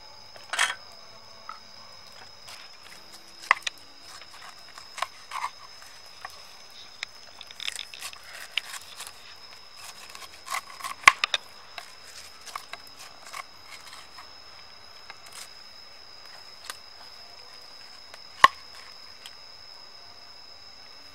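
A knife cutting the rind off a pineapple on a wooden cutting board: irregular crunching cuts and sharp knocks of the blade against the board, the sharpest about 11 and 18 seconds in. A steady high-pitched whine runs underneath.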